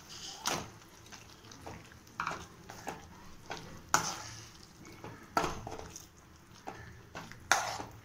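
Metal spoon stirring raw chicken pieces into a mint paste frying in oil: irregular scrapes and knocks of the spoon on the pan, about one every second, over a faint sizzle.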